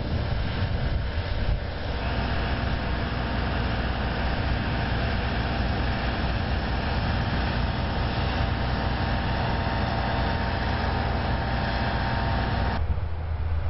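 Heavy construction machinery's engine running steadily, a low rumble with a faint steady whine above it; the higher part of the sound cuts away abruptly near the end.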